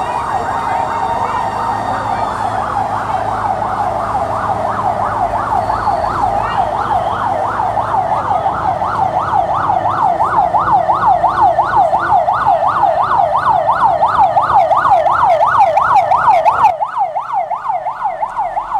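Emergency-vehicle siren responding to a building fire: it first holds a steady high note, then switches to a fast yelp of about four rising-and-falling sweeps a second that grows louder as it approaches, over a low street rumble that drops away near the end.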